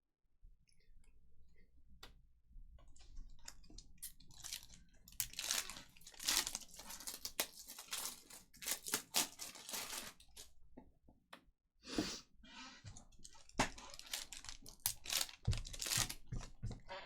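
Foil trading-card pack wrappers being torn open and crinkled, with a crackly rustle that comes in clusters and pauses briefly about two-thirds of the way through.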